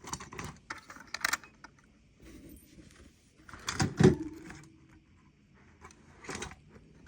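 Small items being moved about on a work surface: scattered clicks and rattles, with one louder knock that rings briefly about four seconds in.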